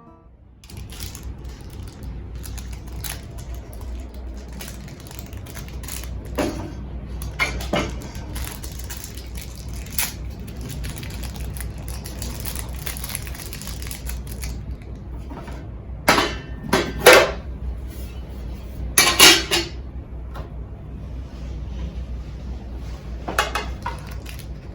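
Metal camp cookware, a mess tin and utensils, being handled: scattered clinks and knocks over a steady low hum, with a few louder clatters about two-thirds of the way through.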